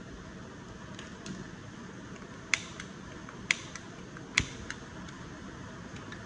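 A long-nosed utility lighter sparked three times at a Bunsen burner, about a second apart, each sharp trigger click followed by a fainter one.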